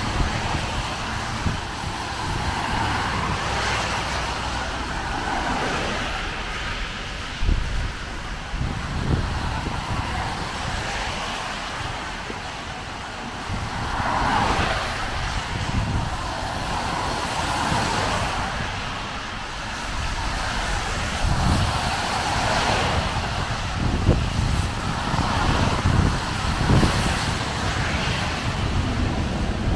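Cars passing on a rain-soaked road, their tyres hissing on the wet surface as each one swells up and fades away. Occasional short low thumps come through underneath.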